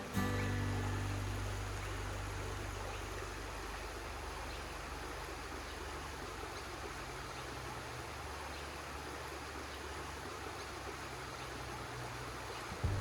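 Creek water running steadily over rocks, with background music fading out in the first few seconds.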